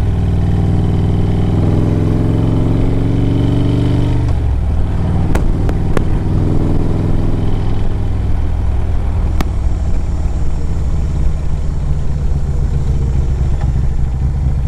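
Harley-Davidson Road Glide's Screaming Eagle 113 cubic inch V-twin engine running under way, climbing in pitch for about four seconds, then dropping and running on steadily. A few sharp clicks near the middle.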